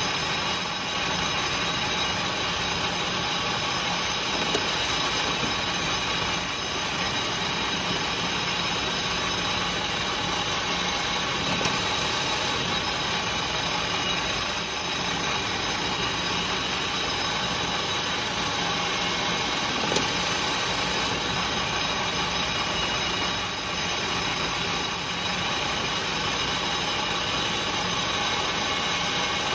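Metal lathe running steadily while the cutting tool bores the dish into an aluminium piston crown: a continuous hum and whine from the machine with several held tones.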